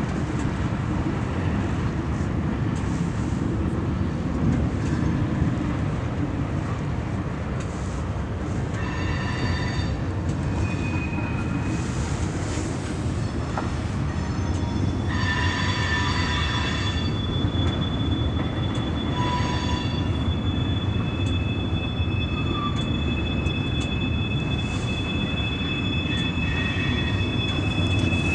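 Freight train cars rolling past with a steady low rumble of wheels on rail. High-pitched metallic wheel squeals break in several times, and from about two-thirds of the way through a steady high squeal holds.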